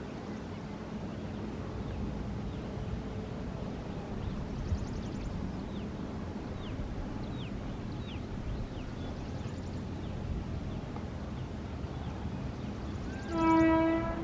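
Freight train running with a steady low rumble, with brief high falling chirps now and then. About 13 seconds in, a locomotive horn sounds once for about a second, louder than everything else.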